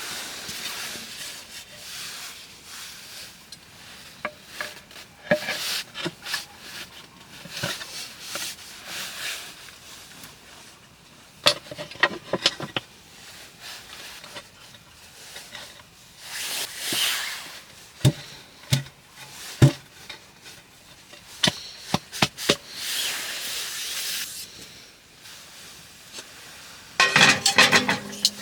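Hands-on cooking sounds: irregular clinks and knocks of pots and utensils, with stretches of hissing like sizzling, and a quick cluster of knocks near the end.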